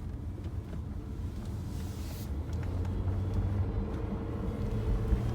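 Hyundai Sonata running with a steady low rumble and faint ticks: the metal grinding noise that shows up on a cold start-up or when turning left. A brief hiss comes about two seconds in.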